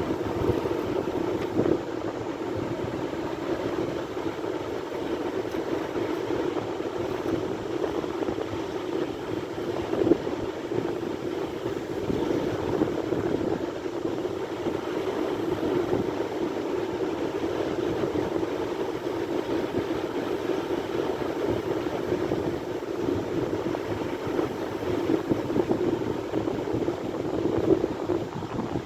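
Sea surf: a steady rushing of waves with no pause, with one brief louder surge about ten seconds in.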